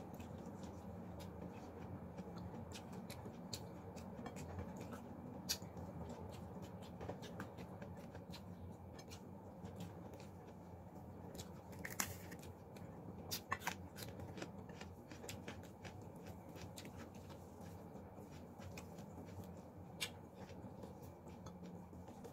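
Close eating sounds: scattered small clicks and smacks of chewing and of fingers picking food off a plate, with a crisp snap about twelve seconds in as a fresh green bell pepper is broken by hand and a few more clicks just after. A steady low hum lies under it.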